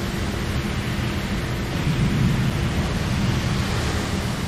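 Anime thunderstorm sound effect: a continuous rumble of thunder with a rain-like hiss, swelling about halfway through.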